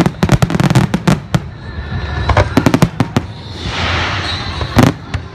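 Fireworks display: aerial shells bursting in quick succession, sharp bangs mixed with dense crackling. A hissing crackle swells past the middle, and a loud bang comes near the end.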